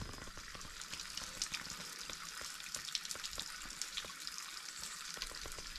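A thin trickle of water running over a mossy rock ledge at a nearly dry waterfall: a light, steady hiss flecked with many tiny splashes.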